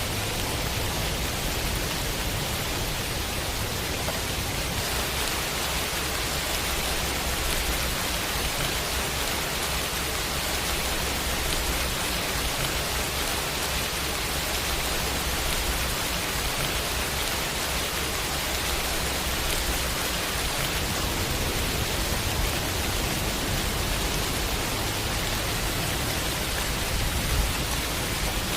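Heavy rain falling steadily: an even, dense hiss without a break.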